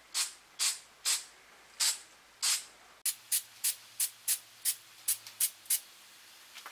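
Aerosol can of flat black spray paint hissing in short bursts as a light dusting is applied. About five bursts come in the first three seconds, then a quicker run of about nine short ones, roughly three a second.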